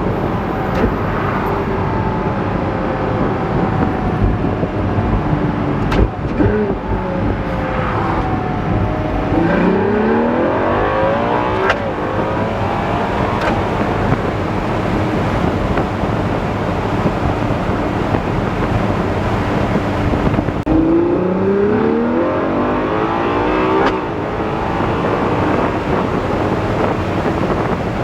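Ferrari Daytona SP3's naturally aspirated 6.5-litre V12, heard from inside the cabin, running at a steady note and then accelerating hard twice. Its pitch climbs through the revs about ten seconds in and again about two-thirds of the way through.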